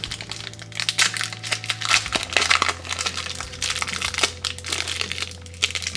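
Ration nougat bar's wrapper being crinkled and torn open by hand: a run of irregular crackles and rustles. A steady low hum lies beneath.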